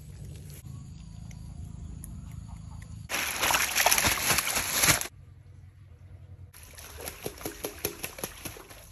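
Water poured from a plastic container into a metal basin of small fish, a loud steady rush lasting about two seconds. A few seconds later comes a run of quick splashes in the basin, with an otter in the water.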